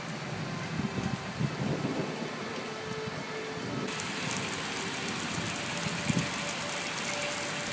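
Heavy rain pouring onto a wet street, a steady hiss that turns denser and heavier about four seconds in.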